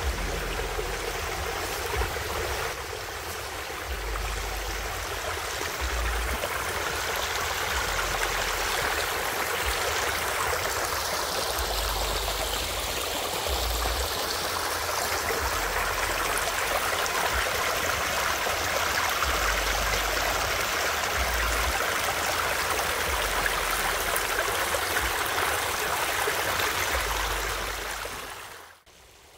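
Shallow rocky stream running over stones and through a line of stacked rocks: a steady rush and babble of water. It cuts off suddenly near the end.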